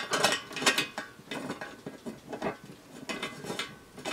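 Irregular clicking and scraping of a small metal lock being pushed into and worked in the lock hole of a candy vending machine's lid.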